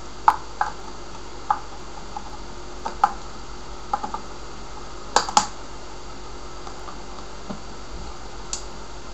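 About a dozen irregular sharp plastic clicks and taps from hands handling a bare motherboard's memory modules and cables, over a steady low background noise.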